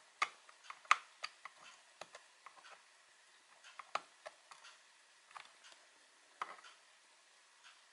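Scattered small clicks and taps of a screwdriver and fingers on plastic as the brown locking flap of an HP TC4400 notebook's keyboard ribbon-cable connector is pushed down to clamp the cable.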